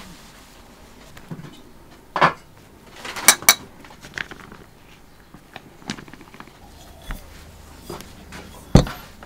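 Scattered light clinks and knocks of dishes and kitchen utensils: one about two seconds in, a quick pair a second later, and a louder one near the end, over quiet room tone.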